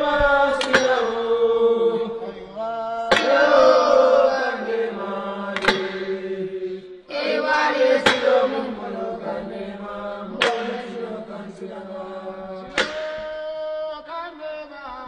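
Voices chanting a slow song together in long held notes, with a sharp strike about every two and a half seconds: a Kankurang ceremony chant.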